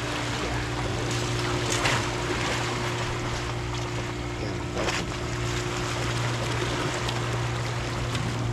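Steady drone of a passing fishing boat's engine over sea water washing against rocks, with two brief louder splashes about two seconds in and again near five seconds.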